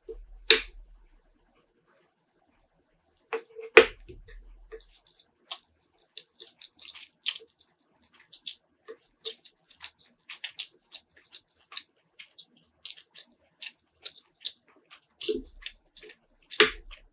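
Close-miked mukbang eating: chewing and mouth sounds, with many short, crisp clicks in quick succession. Two louder knocks sound in the first four seconds and another near the end.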